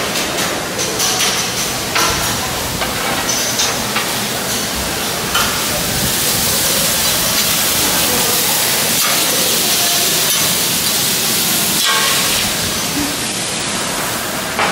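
Buffet clatter of dishes and utensils with indistinct voices, then a steady sizzling hiss from a flat-top griddle with vegetables cooking on it for several seconds in the middle, easing off near the end.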